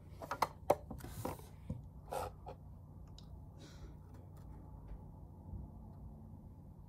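A few light plastic clicks and rustles in the first two seconds or so as a fingertip pulse oximeter's spring clip is opened and clamped onto a finger, then only a low steady room hum.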